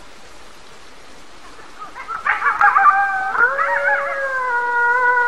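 Several wild canids howling together: after about two seconds of quieter background, warbling yips break out, then settle into long, overlapping howls at several pitches that slide slowly downward.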